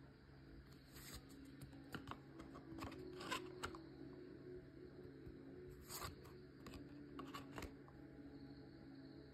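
Oracle cards being handled, each front card slid off the deck and put to the back, giving faint scattered clicks and rustles of card stock, the clearest about three seconds in and again around six and seven and a half seconds. A low steady hum sits underneath.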